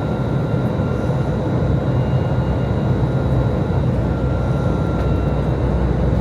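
Steady cabin noise of an Airbus A320 in flight with IAE V2527-A5 engines: a low engine drone and rushing air, with a thin steady whine on top.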